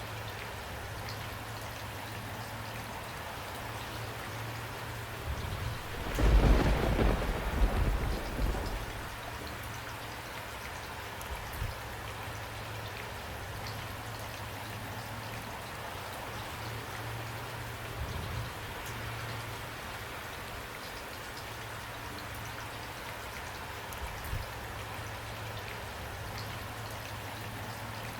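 Steady rain falling, with a loud, deep roll of thunder about six seconds in that rumbles for about three seconds and then fades back into the rain. A few fainter low rumbles follow later on.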